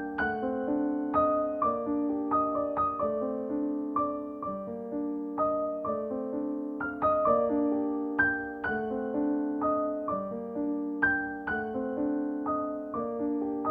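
Background piano music: a gentle, steady sequence of plucked-sounding notes that ring and fade, with no voice over it.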